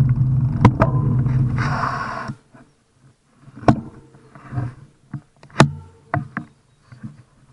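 Steady low rumble of wind and road noise on a bicycle-mounted camera while riding, cutting off suddenly about two seconds in as the bike comes to a stop. After that, quiet with a few scattered sharp clicks and knocks.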